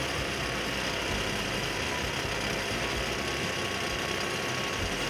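Gang drill boring dowel-bar holes into the cut edge of a concrete pavement slab: a steady, dense drilling noise that does not let up.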